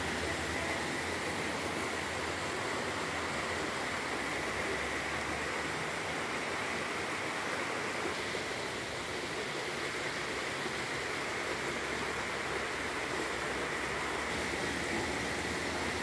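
Small waterfall pouring down a rock face into a pool: a steady rush of falling water.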